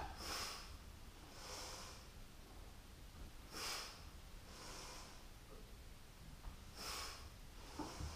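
A woman's short, faint breaths, about five over eight seconds, taken in and out in time with a seated rowing core exercise.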